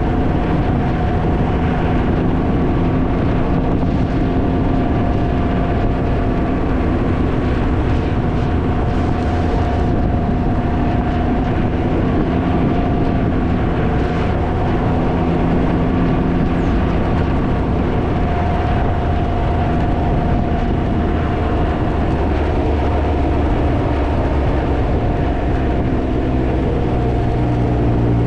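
Can-Am Ryker three-wheeler's engine running at a steady cruising speed, with heavy wind buffeting on the microphone. Near the end the engine note falls as the bike slows.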